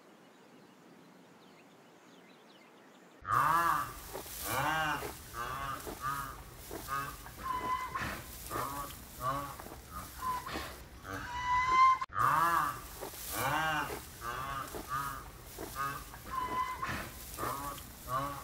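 Near silence for about three seconds, then white rhinoceros calls: a fast run of short, high squealing calls, each rising and falling in pitch, about one or two a second, with a brief break near the middle before the run starts again.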